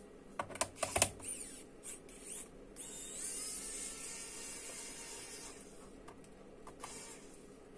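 A few sharp clicks of handling the laptop's plastic case, then an electric screwdriver whirring for about two and a half seconds as it undoes a screw in the bottom cover.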